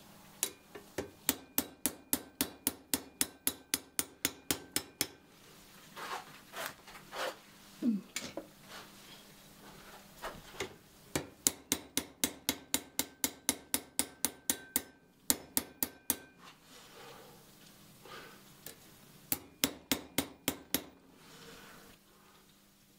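A small hammer taps the steel of an old Japanese ryoba saw against a steel anvil block, in quick even strikes of about three or four a second. The hammering is straightening the saw's bent neck. There are three runs of taps, with softer handling noises of the blade between them.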